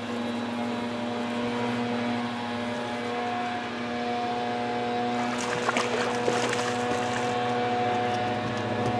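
A boat motor running at a steady speed, holding one even pitch with a few light clicks partway through.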